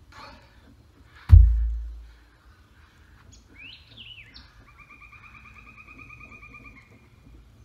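A heavy rock lifted overhead for a power clean is dropped onto the forest floor: one deep thud about a second in. Then a songbird gives a few falling notes and a rapid, even trill.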